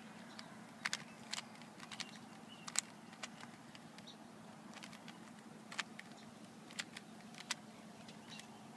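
Plastic Rubik's Cube being twisted quickly by hand: irregular clicks and clacks as the layers turn, with a dozen or so louder snaps, over a faint steady low hum.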